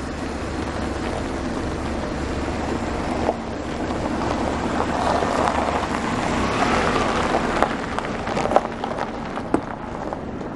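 A car driving out of a gateway and passing close, its engine and tyres on gravel rising to a peak in the middle and then fading. A few sharp clicks come near the end.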